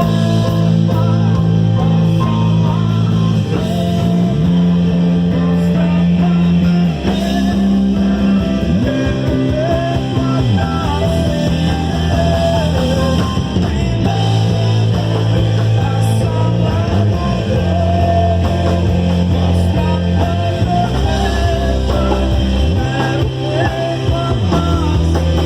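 Live rock-style worship band playing an instrumental passage: a melodic electric-guitar lead over sustained bass notes that change every couple of seconds, with keyboard and drums.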